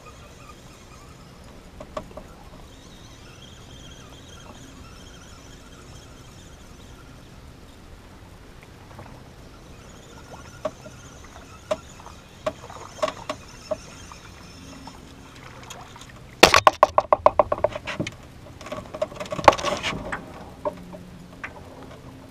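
Landing a crappie on a spinning outfit: scattered clicks, then a fast run of clicks from the spinning reel about sixteen seconds in, followed by a brief burst of splashing and rattling as the fish comes out of the water.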